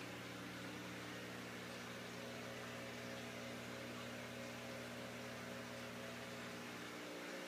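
Aquarium equipment running: a steady electric hum over a faint even hiss.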